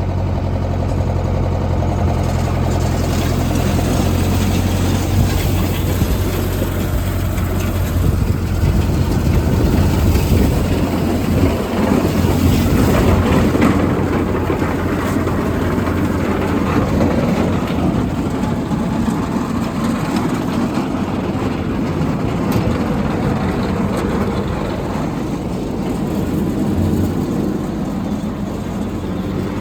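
An engine running steadily with a low hum. It turns rougher and a little louder for several seconds in the middle, then settles again.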